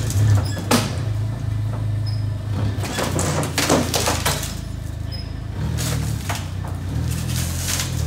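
Propane forklift engine running with a steady low drone while it carries a heavy paper cutter on its forks, with a few sharp metallic knocks and rattles over it.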